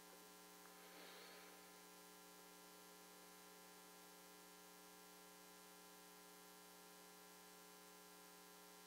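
Near silence with a steady electrical mains hum, and a faint brief hiss about a second in.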